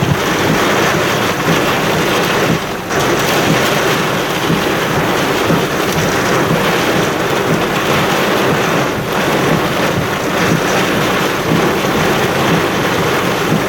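Heavy rain and storm wind battering a car, heard from inside the cabin as a dense, steady rush with a brief lull about three seconds in.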